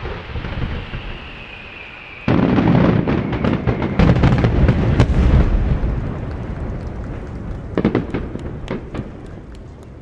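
Fireworks barrage: a sudden heavy volley of aerial shells bursting about two seconds in, the booms running together under dense crackling, then dying away, with a second short flurry of crackles near the end.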